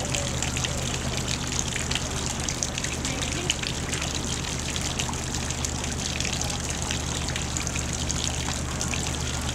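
Small stone garden fountain: water spouting from its upper bowl and dribbling over the rim into the basin below, a steady splashing trickle.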